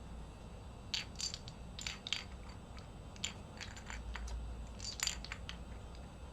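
Plastic SA-profile keycaps being set down and shuffled into rows on a surface, a dozen or so irregular light clicks and clacks.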